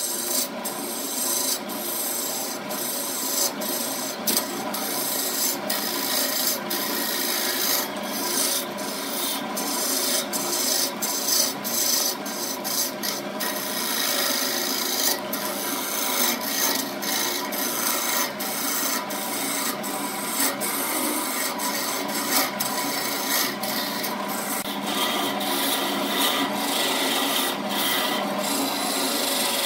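Burt wood lathe running while a gouge cuts into a spinning wooden vase blank: continuous scraping and shaving of wood over a steady motor hum, with many short sharp ticks throughout.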